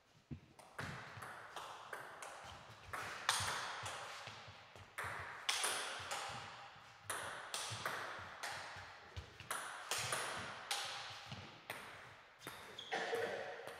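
Table tennis ball clicking off the bats and table in a fast rally, with several hard hits among the lighter strokes. Each hit echoes in the hall.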